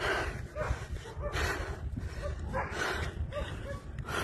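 A dog barking repeatedly, about once or twice a second, over a steady low rumble.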